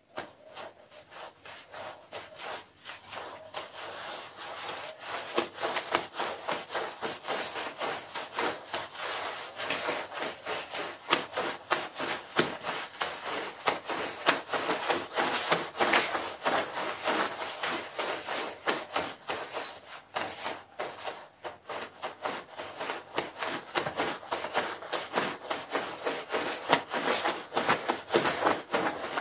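Long-handled push brush scrubbing a wet, soapy carpet in quick, continuous back-and-forth strokes, the stiff bristles rubbing through the lather and pile.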